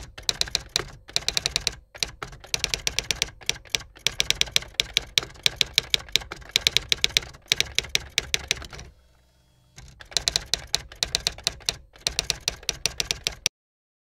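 Typewriter typing sound effect: runs of rapid key clicks with short breaks between them and a longer pause about nine seconds in, stopping shortly before the end.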